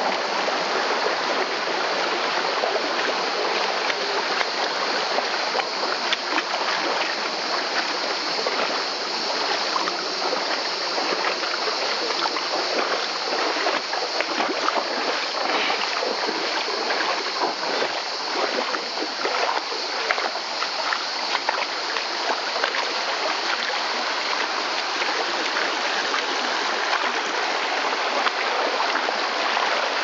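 Shallow stream rushing steadily over rocks, with frequent small splashes through the middle.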